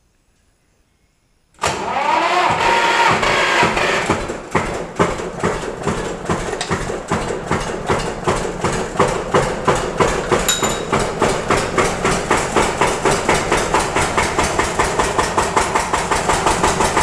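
Old Allgaier diesel tractor engine starting after a short glow-plug preheat. It catches at once about a second and a half in, revs briefly, then settles into a steady idle with an even, pulsing beat.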